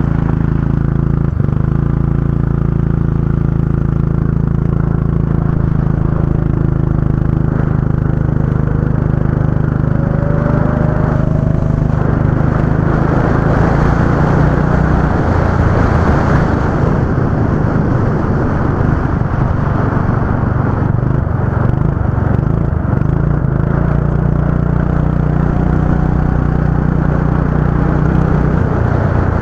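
Go-kart engines running: a steady engine drone for about the first half, turning rougher and noisier around the middle, then settling back to a steady drone, with fainter slowly rising engine pitches from other karts.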